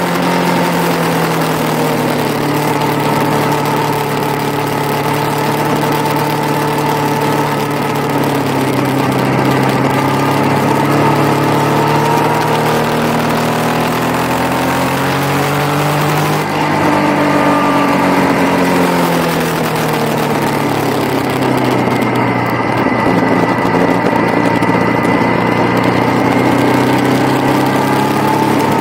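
Yamaha motorcycle engine running under load on a track lap, its pitch falling, then climbing steadily, dropping suddenly about halfway through, and rising and falling again as the rider works the throttle and gears, with a steady hiss of wind over the bike-mounted microphone.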